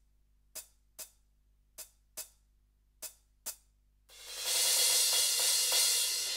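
Roland TD-17KVX electronic drum kit playing cymbal sounds: six short, sharp hits in pairs. About four seconds in, a loud sustained cymbal wash swells up and keeps ringing.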